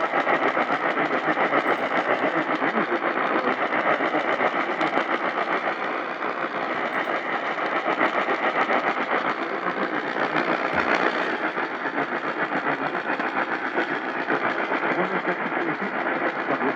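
Steady rushing hiss of AM radio static, a noisy fluttering sound with no voice or tones in it.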